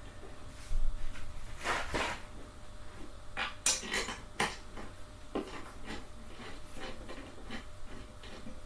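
Irregular clicks, scrapes and knocks of metal hardware being handled and bolts driven in with an Allen key while fitting a gaming chair's parts together.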